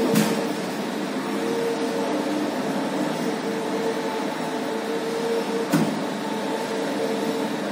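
Steam ironing machine running with a steady whir, and a hum at one pitch that comes and goes. Two short clicks, one at the start and one about six seconds in.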